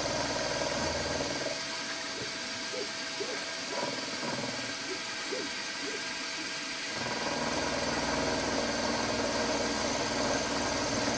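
Milling machine running, its end mill cutting a slot in a connecting-rod blank held in a vise. The low hum drops away about a second and a half in and returns about halfway through.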